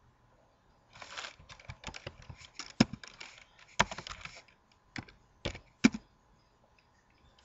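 Computer keyboard typing: a run of keystroke clicks, a few of them louder, starting about a second in and stopping about six seconds in.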